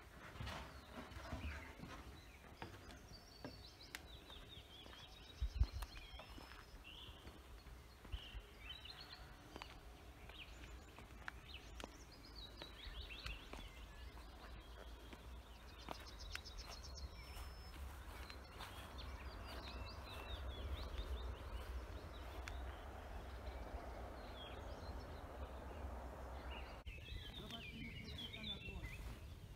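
Outdoor ambience of small birds chirping and trilling on and off, over a low rumble of wind on the microphone, with one sharp knock about five and a half seconds in.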